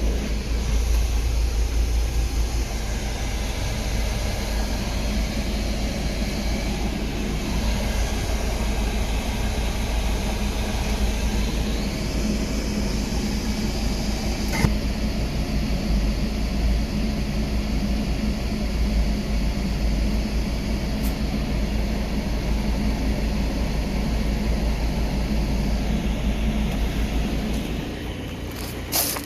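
Subaru Sambar minitruck's heater blower fan running steadily over the idling engine during warm-up, with a single click about halfway through.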